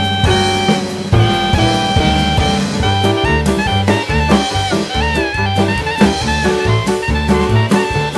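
Background jazz music with saxophone or brass melody over bass and drums.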